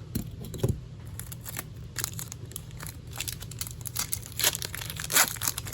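Foil Pokémon booster pack being cut open and handled, its wrapper crinkling in a run of short, irregular crackles and rustles.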